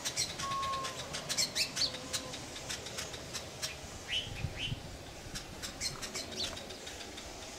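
Weaver birds chattering at their woven nests: a dense run of quick chirps and clicks with a few short whistled glides, thinning out in the second half.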